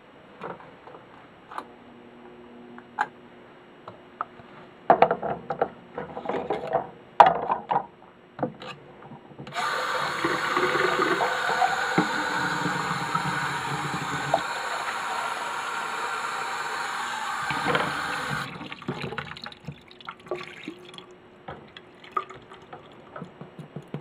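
Light knocks of plastic cups handled in a sink, then a stream of water pours into a plastic cup for about nine seconds, filling it, and stops suddenly; a few more knocks follow.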